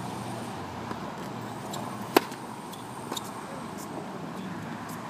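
A tennis serve: one sharp crack of racket strings striking the ball about two seconds in. Several much fainter pops follow as the ball is played on, over a steady background hum.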